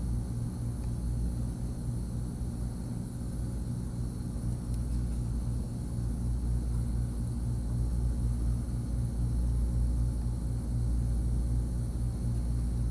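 Steady low hum with a constant high hiss, unchanging throughout.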